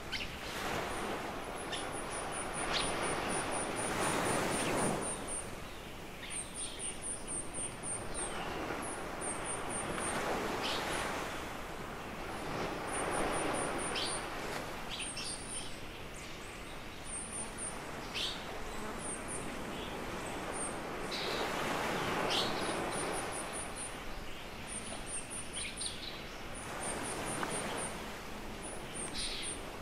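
Small waves breaking and washing up a sandy beach, the surf swelling and fading every few seconds. Over it a bird gives short, quick runs of high chirps again and again.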